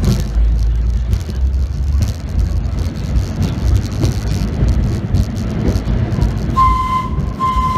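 Vintage R1/9 subway train running through a tunnel with a steady low rumble of wheels and motors. Near the end its whistle sounds two short blasts.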